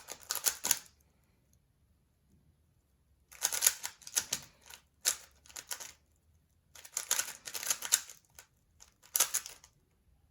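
A 3x3 Rubik's cube being turned quickly by hand: bursts of rapid plastic clicking from the turning layers, broken by pauses of a second or two while the next moves are worked out.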